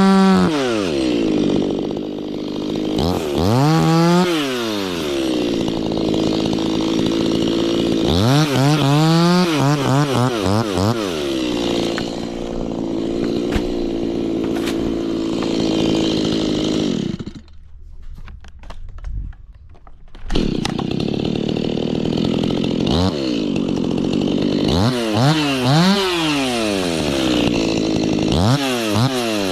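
Two-stroke Stihl chainsaw cutting into a kapok trunk, the engine revving up and settling into a steady lower pitch under load again and again. About 17 seconds in it drops away for about three seconds, then comes back.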